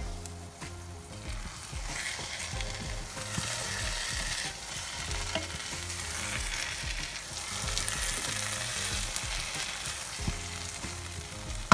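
Egg stew sizzling in a pan on the hob, with a spatula stirring and breaking up the set eggs. The sizzle grows stronger about two seconds in, as the stirring starts.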